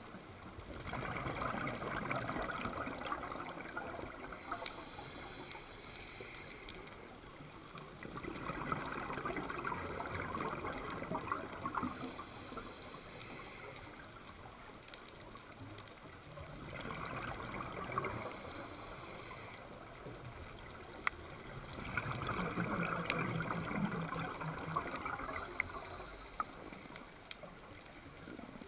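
Scuba diver's exhaled bubbles gurgling out of the regulator underwater, in four bursts a few seconds long that come back about every six to seven seconds with the breathing. Quieter stretches between them carry a few faint sharp clicks.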